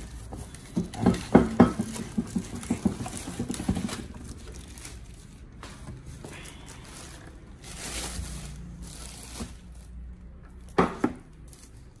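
Clear plastic wrapping rustling and crinkling as a boxed bench drill is handled, busiest in the first few seconds, with a louder crackle near the end.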